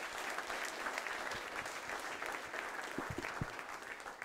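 Audience applauding: a dense, steady clapping that dies away right at the end.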